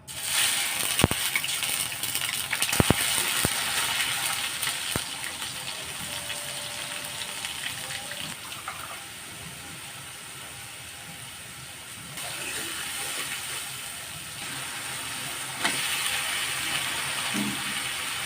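Food sizzling as it fries in a pan, a steady hiss with a few sharp clicks of a utensil against the pan in the first few seconds; the sizzle dies down in the middle and picks up again twice later.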